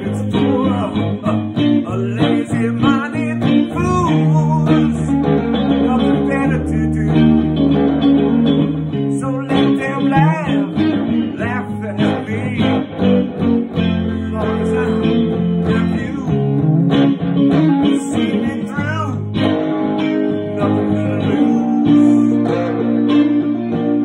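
A man singing while playing electric guitar, with sustained low bass notes underneath.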